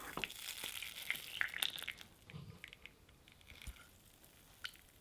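Hot caramel sauce hissing and crackling as it pours from a pan into a glass dish, with a few sharp clicks of pan and spatula. The hiss dies away after about two seconds, leaving a few faint ticks.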